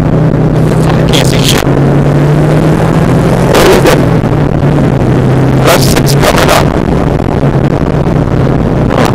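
1997 Subaru Impreza rally car with a WRX engine swap, heard from inside the cabin at speed on a gravel stage: the engine runs at a steady pitch under constant tyre and gravel noise. Sharp knocks and rattles from the rough road come about a second and a half in, near four seconds, around six seconds and near the end.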